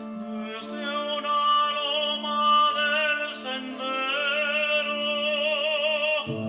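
Opera-style classical singing, a voice holding long notes with wide vibrato over a sustained instrumental accompaniment. Near the end the held note stops and lower accompaniment notes come in.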